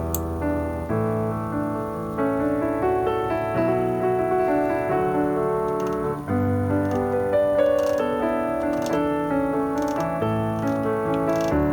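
Background piano music: sustained chords over a bass line that changes every second or two. A few faint clicks sound over it.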